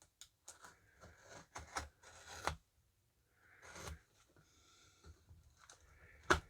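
A CRKT CEO folding knife working at the tape of a package, making faint, irregular scraping, rubbing and tearing sounds with small clicks, and a sharper click near the end.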